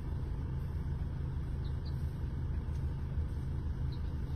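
A vehicle engine idling: a steady low rumble, with a few faint high chirps over it.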